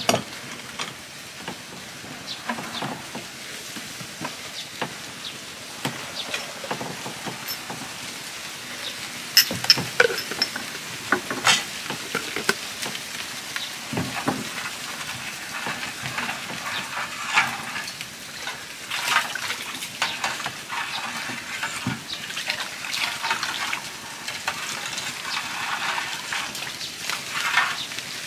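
Food sizzling in a pot or pan during cooking, with sharp clinks and scrapes of a utensil stirring against the metal, most of them about a third of the way in. The sizzle grows stronger in the second half.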